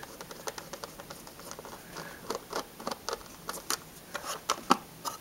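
Small screwdriver turning in the battery-cover screw of a plastic multimeter case: irregular light clicks and scratches of metal on screw and plastic, a few louder ones near the end.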